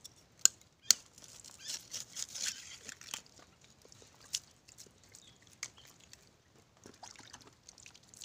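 Sea urchins being cracked open and handled with a knife on a rock: two sharp knocks in the first second, then crunchy scraping and scattered clicks of shell.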